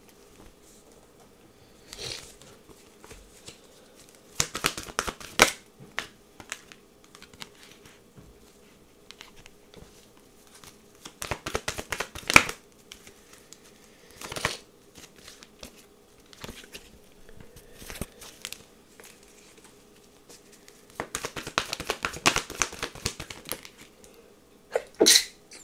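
A deck of tarot cards being shuffled by hand, in three bouts of quick flicking and rustling with lighter card handling between. Two short, sharp sounds come from a person near the end.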